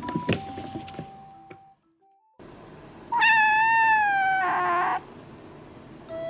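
Brown tabby kitten meowing: one long, high meow about three seconds in, falling slightly in pitch and turning rough at its end. Light background music plays in the first second and a half.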